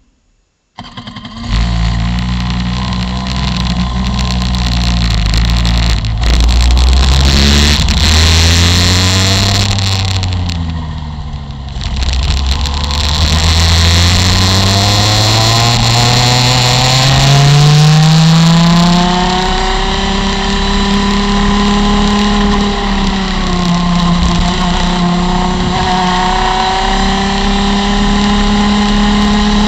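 Rotax MAX FR125 Senior 125 cc two-stroke kart engine heard onboard, coming in about a second in, revving as the kart pulls away, easing off briefly around ten seconds in, then climbing steadily to high revs near 12,000 rpm at full throttle, with a short dip in pitch partway through.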